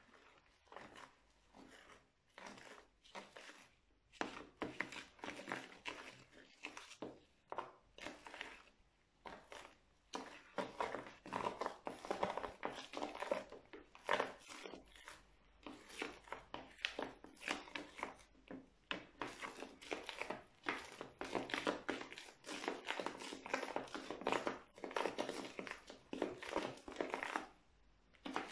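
A metal spoon stirring and scraping a foamy crunchy-slime mixture full of small foam beads in a clear bowl, a dense run of short, irregular sticky crackles. The strokes are sparser for the first few seconds and come thick and fast from about four seconds in.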